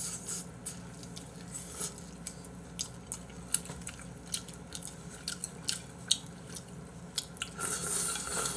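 A person eating noodles with chopsticks: wet chewing and mouth clicks, with chopsticks clicking against the bowl. Near the end comes a longer slurp as the bowl is lifted to the mouth.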